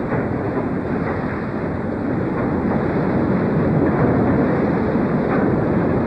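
Steady rushing, rumbling noise of a rotary drill rig boring a rock socket for a pile, with its flushing water pouring out of the steel pile casing.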